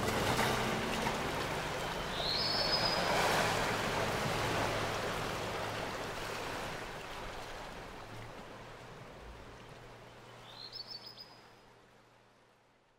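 Soft wash of gentle waves fading out gradually to silence, with two brief high chirps, about two seconds in and again near eleven seconds.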